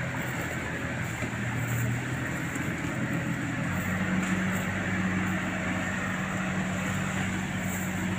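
Heavy engines of an excavator and a loaded palm-fruit truck stuck in mud running steadily; the engine note rises to a higher, steady pitch about four seconds in.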